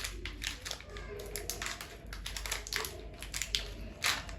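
Crinkling and crackling of a plastic M&M's candy packet being handled, in quick irregular clicks and rustles.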